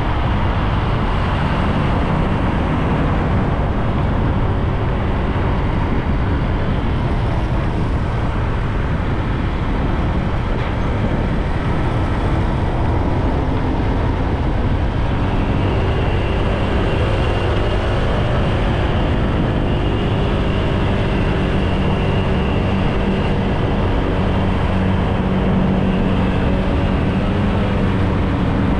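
Steady wind buffeting and road noise from a moving bike, with motor traffic passing. A steady engine hum grows stronger over the second half as a taxi draws alongside.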